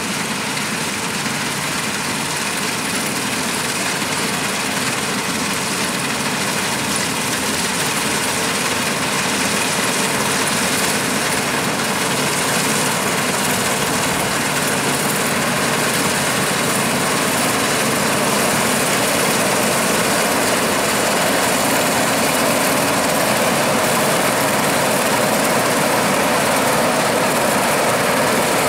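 Bizon Rekord Z058 combine harvester running while harvesting oats: a steady drone of its diesel engine and threshing machinery, growing gradually louder as it comes closer.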